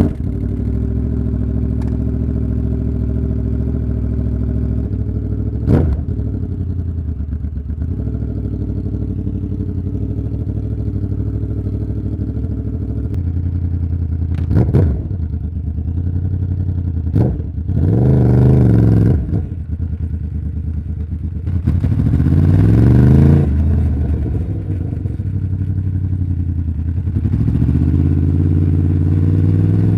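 2011 Yamaha YZF-R1's crossplane inline-four on its stock exhaust, idling with throttle blips. There are short blips about 6, 15 and 17 seconds in, longer revs around 18 and 22 seconds, and the engine speed rises slowly near the end.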